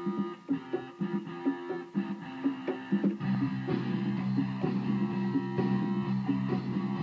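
Roland VR-09 combo keyboard playing a looped phrase from its built-in looper: short repeated notes over held tones. About three seconds in, a sustained low chord comes in and holds under the notes.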